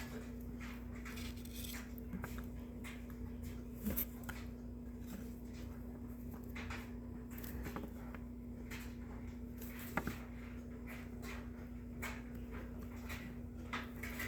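Trading cards being handled and flipped through: soft rustles and small clicks of card stock sliding against card stock, with a couple of slightly louder taps, over a steady low hum.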